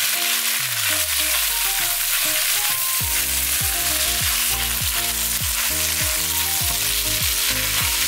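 Shredded pork, carrot, green pepper and black fungus sizzling steadily as they are stir-fried over high heat in a wok, stirred with a silicone spatula. Background music plays underneath, with a beat coming in about three seconds in.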